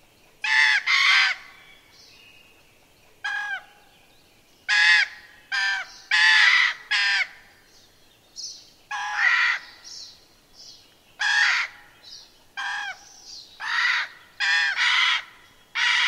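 Juvenile common raven giving a long series of harsh calls, singly and in quick pairs, with fainter higher-pitched calls between them. It is a recording played back over a loudspeaker.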